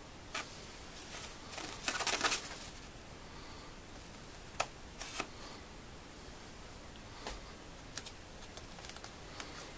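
Scissors snipping into a quilted nylon coat, sharp snips mixed with the crinkle of the slick fabric: a quick run of cuts about two seconds in, then scattered single snips.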